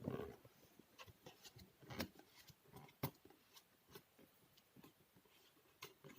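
Near silence: quiet room tone with a few faint scattered clicks and taps, the clearest about two and three seconds in.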